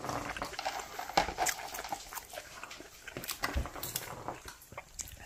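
Irregular small clicks and crunches of puffed corn snacks being picked out of a plastic tub and chewed.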